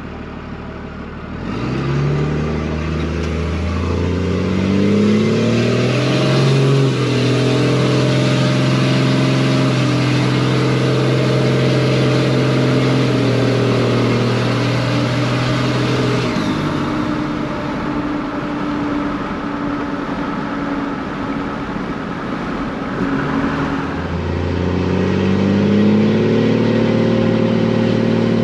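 24-valve Cummins diesel of a 2001 Dodge Ram 2500 pulling hard under acceleration: the engine pitch climbs for several seconds, holds steady, falls away as the throttle is let off a little after halfway, then climbs again near the end.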